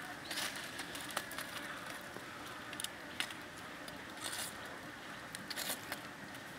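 Faint crackling and sizzling of a squid grilling on a wooden skewer over charcoal embers, with scattered small pops and clicks over a low hiss.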